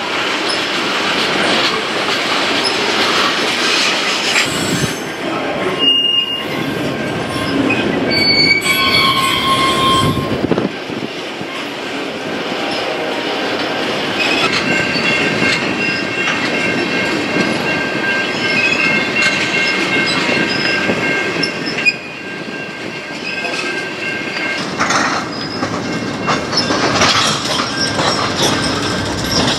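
Freight train of tank cars and autorack cars rolling steadily past: a continuous rumble and rattle of steel wheels on rail, with high-pitched wheel squeals. Short squeals come around a quarter of the way in, and a longer held squeal runs through the middle.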